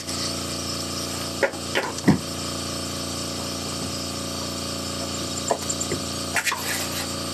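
Air compressor running with a steady hum, with a few short knocks and clinks of tools on metal scattered through it.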